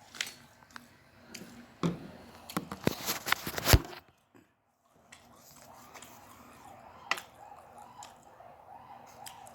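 Close-up eating sounds: crisp clicks and crackles of food being bitten and handled during the first few seconds, then fainter chewing after a short break.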